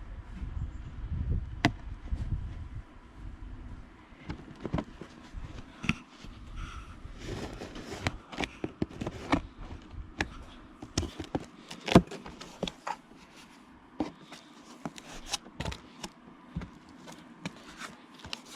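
A cardboard box being opened and its contents handled: scraping and rubbing, with a string of sharp knocks and clicks. The loudest is a sharp knock about twelve seconds in.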